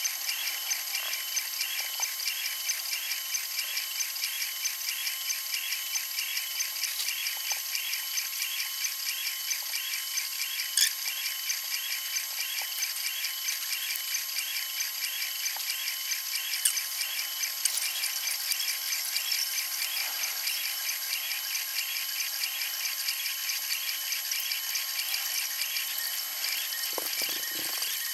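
Flashforge 3D printer running a print: stepper motors whining and chirping in a quick repeating pattern over a steady high hum, with a few sharp clicks.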